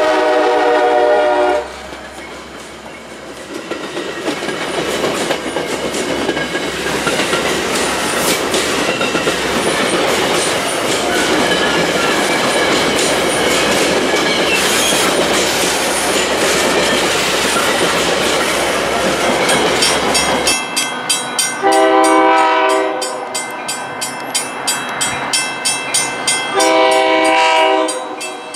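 A Metra F40PH diesel locomotive's horn cuts off about a second and a half in as the locomotive passes close by, then its stainless bilevel commuter cars roll past with a steady rumble and wheels clicking over rail joints. Near the end a train horn sounds two long blasts while a grade-crossing bell rings rapidly.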